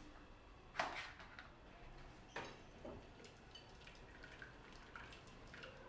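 Water splashing and dripping back into the cooking robot's steel bowl as the plastic steamer basket of cooked rice is lifted out. There is a sharper splash or knock about a second in and another about two and a half seconds in, with fainter drips and ticks after.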